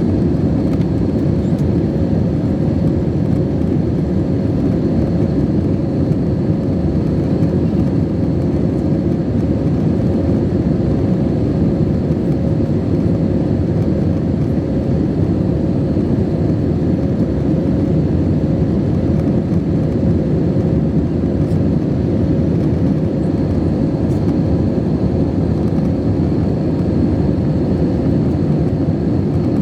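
Steady cabin drone of an Airbus A320 climbing out, the low rush of airflow and its IAE V2527 turbofan engines, with a faint steady whine above it.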